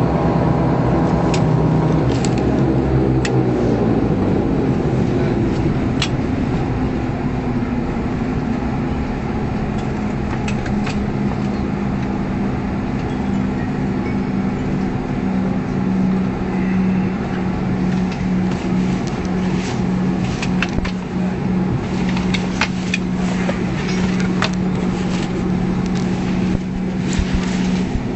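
Bombardier Q400's Pratt & Whitney PW150A turboprop engine running down after shutdown, heard from inside the cabin: its tone falls in pitch over the first few seconds as the propeller slows. A steady hum carries on after it, with scattered clicks and knocks in the last third.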